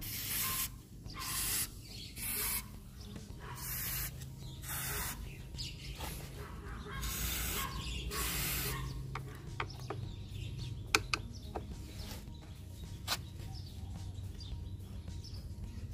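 Aerosol can of rust-penetrating spray hissing in six short bursts, the last one longer, aimed through its straw at the air filter housing bolts of a Suzuki Let's scooter. After about nine seconds come a few sharp clicks of a screwdriver set on those bolts.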